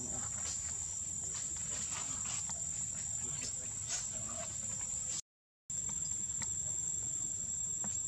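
Insects, such as crickets, keeping up one steady high-pitched tone, with a few faint scattered ticks. The sound cuts out completely for about half a second a little after five seconds in.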